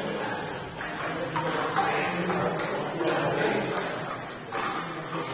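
Table tennis balls clicking irregularly off bats and tables at several tables at once, over a murmur of players' voices.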